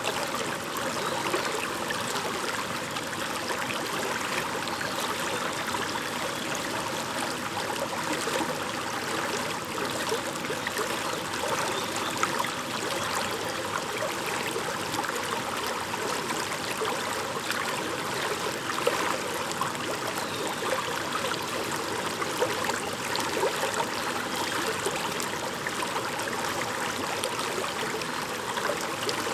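Small brook babbling: a steady rush of running water.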